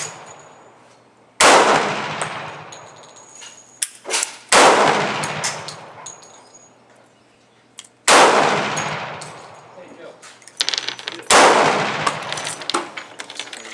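Four single handgun shots fired slowly, about three seconds apart, each ringing out in a long fading echo, with small clicks between the shots.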